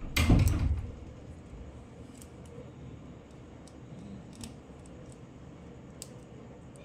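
Handling noise of small plastic Kinder Joy toy parts as a toy car is put together: a brief thump and rustle in the first second, then a few faint clicks of the plastic pieces being fitted.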